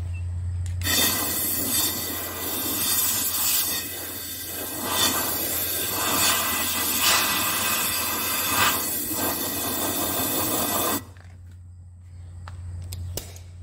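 Compressed air hissing in several pulses into the top of a Continental O-200 cylinder, blowing out carbon and reaming debris after the valve guide was reamed; it cuts off suddenly about eleven seconds in.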